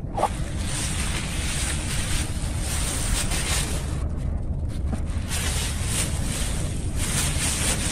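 Wind buffeting the microphone outdoors: a steady low rumble and hiss that swells in gusts a few times. A short chicken cluck comes just after the start.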